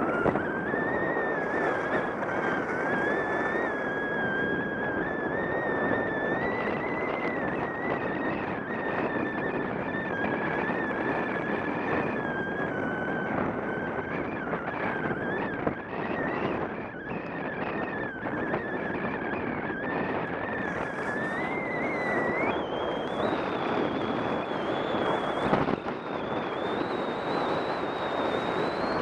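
Wind rushing over the camera microphone while skiing down a groomed run, with skis sliding and scraping on packed snow. A thin whistle that wavers slightly in pitch runs through most of it and rises and breaks off a little over twenty seconds in.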